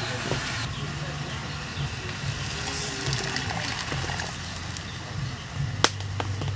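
Snails and chilies sizzling in a steel wok over a wood fire, with water poured into the pan in a thin stream partway through, a steady hiss over a low hum. One sharp metallic click near the end.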